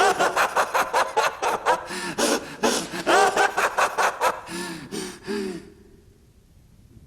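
A man's manic villain laugh, Light Yagami's 'Kira laugh' from Death Note, in fast repeated bursts that break off about five and a half seconds in.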